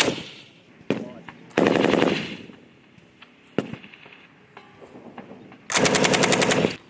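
M240B 7.62 mm belt-fed machine guns firing two short bursts of about a second each, one early and one near the end, at the rapid rate of fire. A few single sharp shots sound between the bursts.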